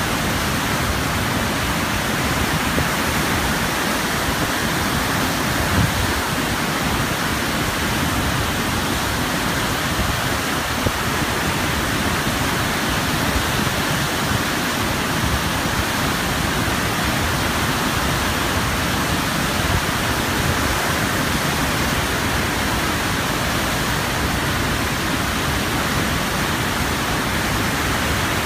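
Turbulent, foaming whitewater churning and rushing in a steady, unbroken wash of noise.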